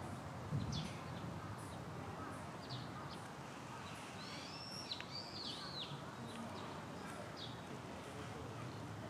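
Small birds chirping: scattered short high notes, with a quick run of arched calls about four to five seconds in, over steady background noise.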